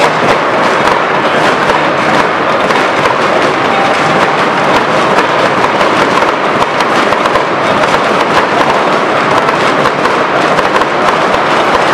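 Firecrackers and fireworks going off in a dense, continuous crackle of many small bangs, over the steady loud noise of a packed stadium stand.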